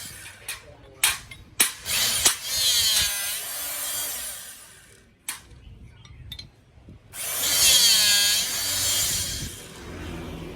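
Electric hydraulic rebar cutter (16 mm capacity) running in two bursts after a few sharp clicks. Its motor-pump whine dips in pitch and climbs back each time.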